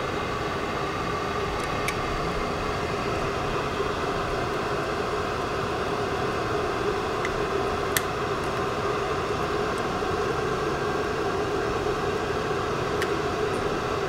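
Steady hum and hiss of a running fan. A few faint clicks come from a small screwdriver driving screws into an LED board's mounting clips, the sharpest about eight seconds in.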